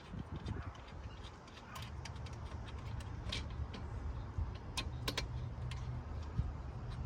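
Scattered sharp metallic clicks and clinks of hand tools and bolts during work in an engine bay, over a low steady rumble.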